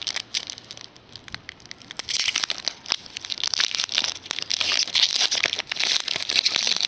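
Trading card pack wrappers crinkling and tearing as packs are opened by hand, a continuous stream of crackles with louder bursts.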